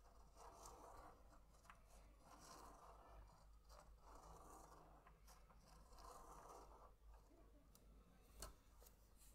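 Faint scratching of a fine-tip pen drawing on paper as it is guided around inside a clear plastic Spirograph gear wheel, in strokes about a second long with short pauses. A sharp click near the end.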